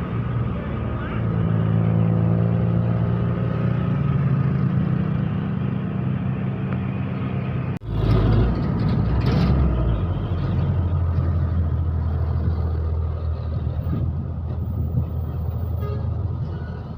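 Road vehicle engine running steadily, then an abrupt break about eight seconds in, followed by a short rush of noise and a lower, steady engine drone. No musical horn stands out.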